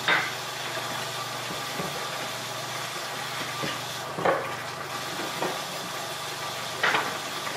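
Kitchen tap running steadily, with three sharp clinks of kitchenware being handled at the sink: one at the start, one about halfway through and one near the end.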